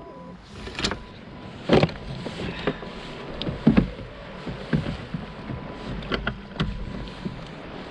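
Irregular knocks and clicks of gear and a caught fish being handled against a plastic fishing kayak, about a dozen sharp strikes at uneven gaps, the loudest two near the start and middle.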